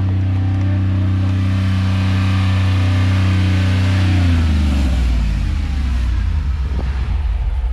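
Off-road Jeep's engine held at steady raised revs as it creeps up a steep gravel trail, then dropping back to a low idle a little over halfway through.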